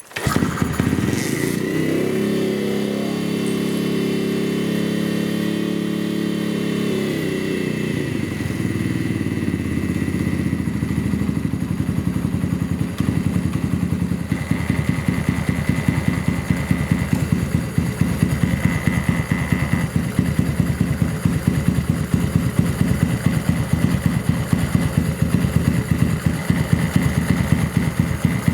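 Snake Motors K16's 125cc single-cylinder engine starting up, running at a fast, even idle for about eight seconds, then dropping to a slower, pulsing idle, with an abnormal noise that the shop traces to the clutch.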